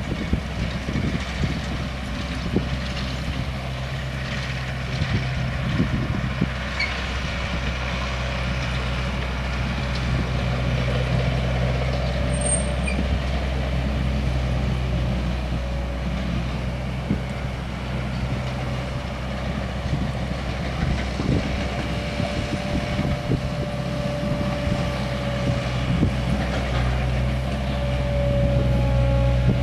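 A steady low engine hum, with one part of it dropping out briefly and coming back a few times.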